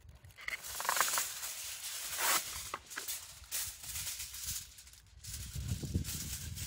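Aluminium foil crackling and rustling as a sheet is pulled from its box and torn off, then crinkled around a sweet potato as it is wrapped. There are sharp bursts of crackle about one and two seconds in.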